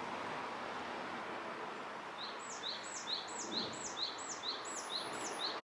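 A bird calling over and over, about two calls a second, each a high downward-hooked note paired with a lower one, over a steady hiss of outdoor background noise; the sound cuts off abruptly near the end.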